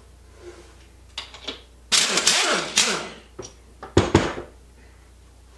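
A cordless power tool runs in a loud rattling burst of about a second, loosening fasteners on a Subaru engine during teardown, with a few light clicks before it. About four seconds in comes a single sharp metallic clank that rings briefly.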